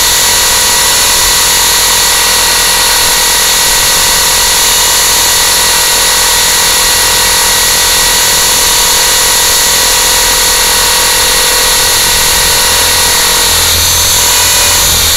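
Electric motors and propellers of a small RC aircraft in hover, heard through its onboard camera: a loud, steady whine with several fixed tones over a buzzing haze, changing a little near the end.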